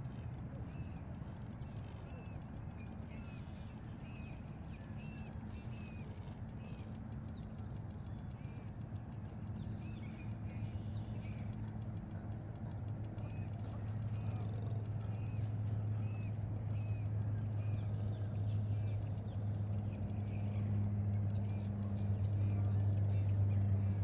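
Many birds calling and chirping in quick, overlapping short notes. About halfway through, a low steady hum comes in underneath and grows louder.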